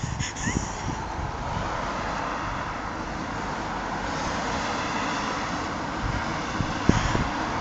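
Steady street noise from road traffic, swelling a little toward the middle, with a few short low bumps near the end.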